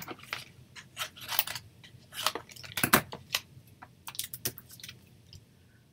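Irregular clicks and crackles of craft supplies being handled on a tabletop, tapering off near the end.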